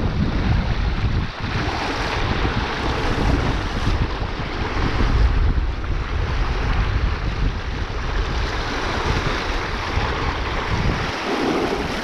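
Fast river current rushing and splashing around wading legs, a steady wash of water noise, with wind buffeting the microphone.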